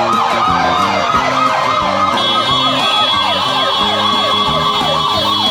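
Electronic yelp sirens on a passing line of escort motorcycles, several overlapping, each sweeping quickly up and down about four times a second. A steady high tone joins about two seconds in, over music with a bass line.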